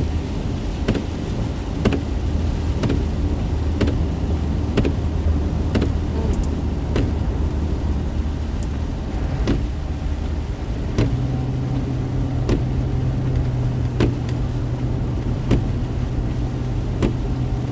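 A car driving through heavy rain on a flooded road, heard from inside the cabin: steady rain and wet-tyre noise under a low engine and road drone that shifts up in pitch about eleven seconds in, with a regular tick about once a second.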